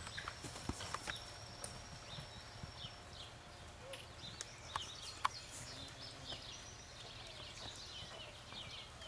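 Horse's hooves striking soft arena dirt at a lope and gallop around barrels, a scatter of irregular dull thuds over a steady low rumble, with one sharp knock about five seconds in.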